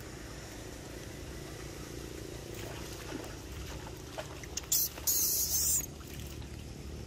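Muddy floodwater running steadily, with a short, loud hissing splash about five seconds in.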